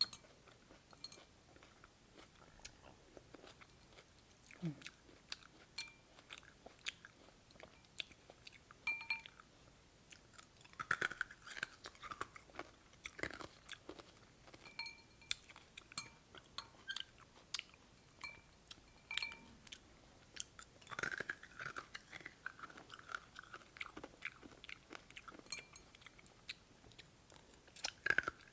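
Close-up chewing and crunching of cold cucumber soup's sliced cucumber, a steady run of small wet crunches and clicks, with a few short ringing clinks now and then.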